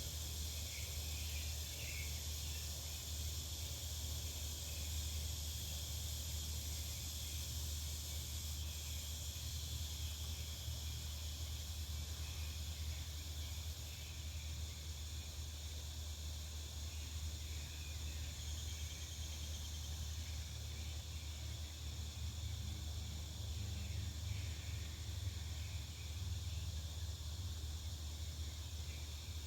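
Back-yard ambience: a steady, high-pitched insect chorus, like crickets, over a constant low rumble.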